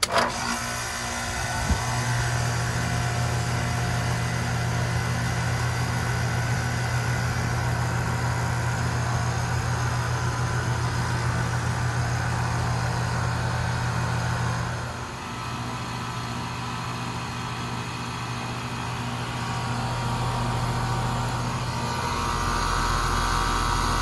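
2018 Goodman 3-ton central air conditioner's outdoor condensing unit starting up: the sound comes in suddenly with a knock about two seconds in, then the compressor hums steadily under the rushing of the condenser fan.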